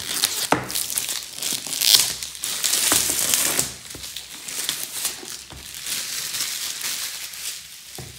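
Clear plastic shrink wrap being peeled off a cardboard box and crumpled, a continuous crinkling with sharp crackles, loudest in the first half and softer after about four seconds.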